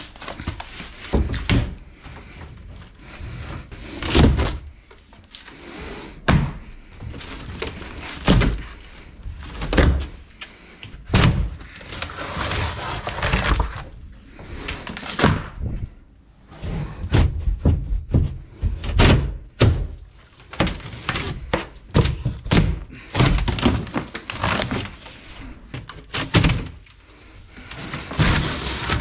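Demolition of a wall section: irregular knocks, thuds and cracking as material is struck and pried out, with scraping in between.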